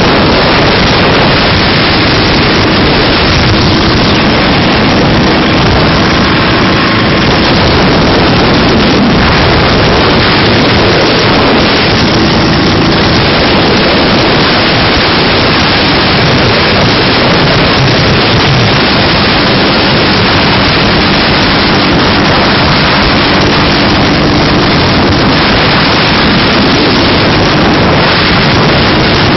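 Dnepr flat-twin motorcycle running steadily at highway speed, its engine drone largely buried under loud, constant wind rush on the microphone.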